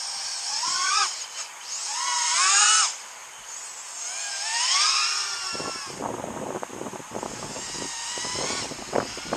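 FPV quadcopter's brushless motors and propellers whining, the pitch climbing in three throttle bursts over the first five seconds or so. After that, wind buffets the microphone in gusts.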